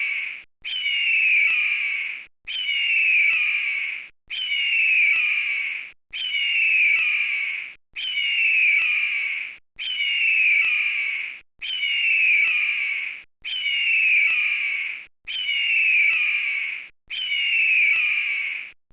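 Eagle call: a long screaming whistle that falls in pitch, repeated about every two seconds with short gaps. The repeats are identical, a looped recording.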